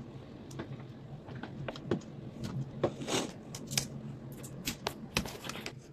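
Crinkly plastic wrapping being peeled off a Mini Brands capsule ball, the hard plastic shell clicking as fingers work at it: scattered short clicks and crackles, with a longer rustle about three seconds in.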